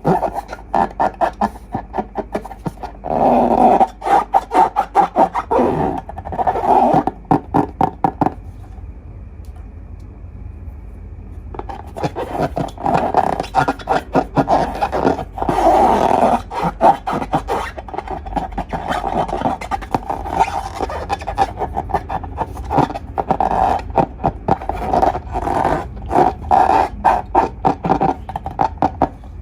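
Slime and long modelling balloons being worked by hand: quick runs of squelching and rubbing squeaks, broken by a lull of about three seconds near the middle.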